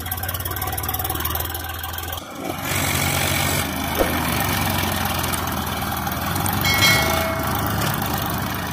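Diesel tractor engines idling steadily, with an abrupt switch about two seconds in to a louder engine running. A short high-pitched tone sounds about seven seconds in.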